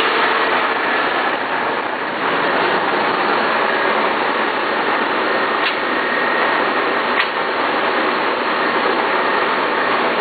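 Dry-mortar production line machinery running: a steady, loud mechanical noise from the mixer and its electric motor and gear drive, with a faint steady whine. Two sharp clicks come partway through.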